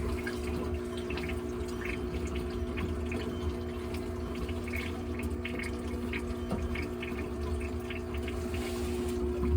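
Small pump in a bucket humming steadily as it circulates descaling solution through a tankless water heater's heat exchanger, with water trickling and dripping back into the bucket from the return hose.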